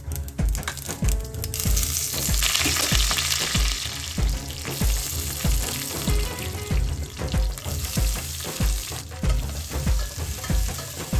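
Spices, curry leaves and green chillies sizzling in hot oil in a stainless steel pot, the sizzle swelling about two seconds in; sliced onions are stirred in near the end. A steady bass beat of background music runs underneath.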